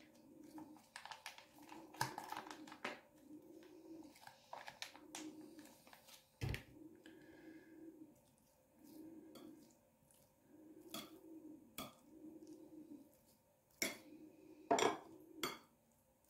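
Table knife scraping and clinking against a china platter while mayonnaise is spread over a layered salad, with several sharp clinks, the loudest near the end.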